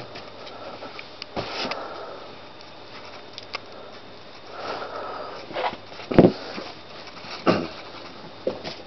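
A foot stomping and pressing on inflated latex balloons on a blanket: a few dull thumps with rubbing and rustling between them, the loudest thump just past six seconds in.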